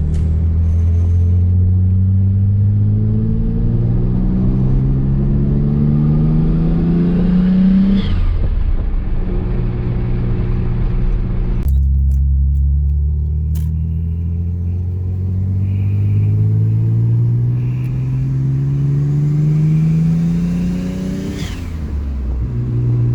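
Mitsubishi 3000GT VR-4's twin-turbo V6 pulling steadily, its pitch rising slowly for about eight seconds before dropping sharply, then a second long, slow rise in pitch.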